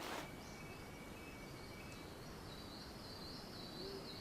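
Faint cloud-forest ambience over a soft hiss. A thin, steady high tone runs throughout, and from about halfway a wavering, higher trill joins it.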